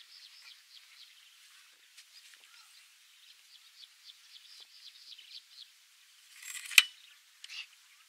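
Rapid high chirping, about four to five short notes a second, that fades out about a second in and returns midway. Near the end a brief rustle builds into a single sharp snap, the loudest sound, followed by a smaller burst of noise.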